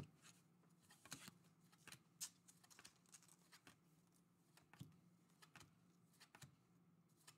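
Faint, irregular soft flicks and slides of Panini Donruss Elite basketball cards being moved one at a time through a stack in the hands, about a dozen small clicks spread through the stretch, over a faint low hum.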